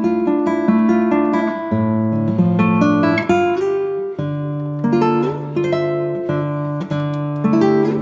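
Background music: acoustic guitar picking and strumming chords over a moving bass line.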